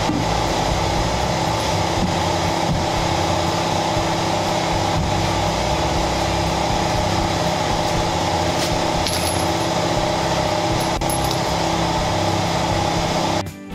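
A machine running steadily: a constant low drone with a hum of several even tones and a few faint knocks, cutting off suddenly near the end.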